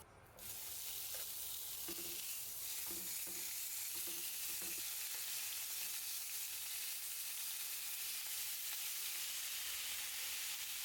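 Food frying in a hot pan: a steady sizzle that starts about half a second in and holds evenly.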